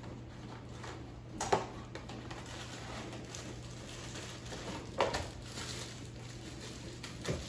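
A cardboard box being opened by hand and a plastic bag pulled out of it: quiet rustling and handling, with three short, sharp crackles or knocks about one and a half, five and seven seconds in.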